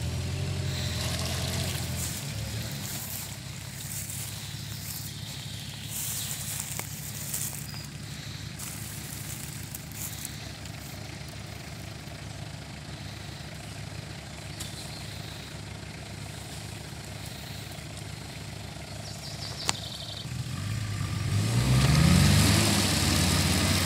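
Off-road vehicle's engine idling steadily, then revving up near the end, rising in pitch and getting louder.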